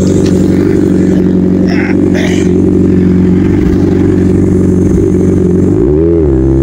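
Motorcycle engine running steadily while riding, with a brief rise and fall in revs about six seconds in.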